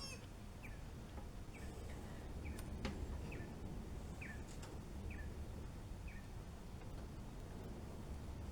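A bird chirping faintly, short falling chirps repeated roughly every three quarters of a second, with a faint click about three seconds in.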